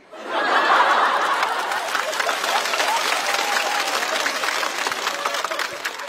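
Studio audience laughing and applauding in response to a comedian's punchline. The laughter and clapping break out just after the start, loudest in the first second or two, then slowly taper off near the end.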